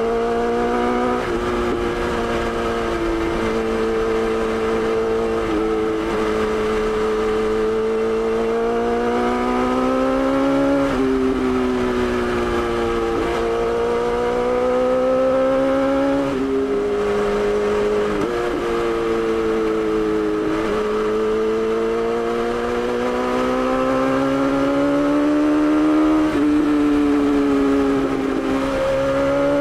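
BMW S1000XR's inline-four engine under way, its note climbing steadily with the revs and then dropping abruptly at each of several gear shifts. A low rumble runs underneath.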